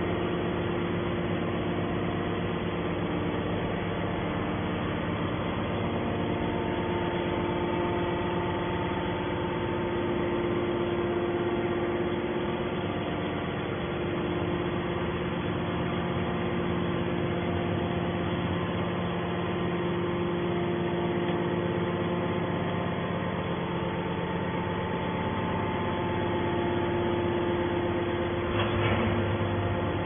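250-ton hydraulic metal scrap baler's electric motor and hydraulic pump running steadily, an even mechanical hum with several steady tones.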